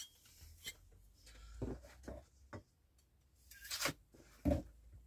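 Trays and a knife being moved about on a tabletop: a handful of light knocks and scrapes, the loudest near the end.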